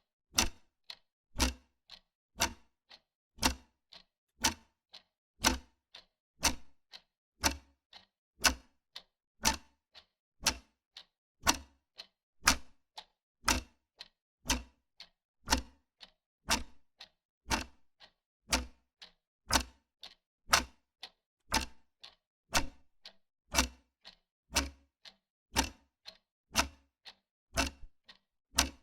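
Wall clock ticking steadily, about two sharp ticks a second, louder and softer ticks alternating in a tick-tock pattern.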